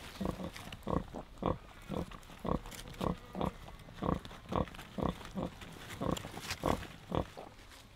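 Large Black × Wessex Saddleback sow grunting softly and rhythmically, about two short grunts a second, as her newborn piglets suckle: the steady nursing grunts a sow makes while feeding her litter.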